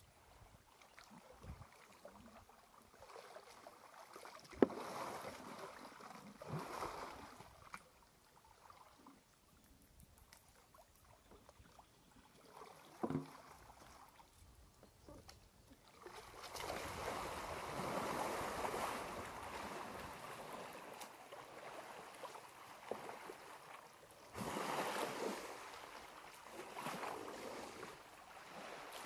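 Water sloshing and splashing in swells as two elephants wade and shove each other in a waterhole, the longest stretch in the second half. A single sharp knock about four and a half seconds in is the loudest sound, with a smaller one near the middle.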